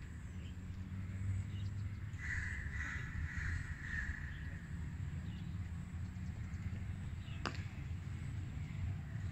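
Crows cawing several times, harsh calls bunched together, over a steady low rumble. A single sharp click comes about seven and a half seconds in.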